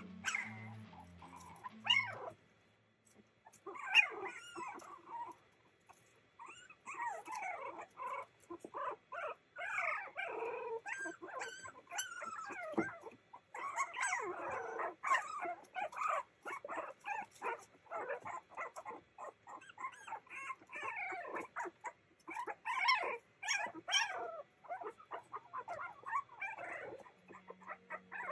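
A litter of young Boston Terrier puppies crying, with many short high cries that rise and fall and overlap almost without a break. There is a short lull about two to four seconds in.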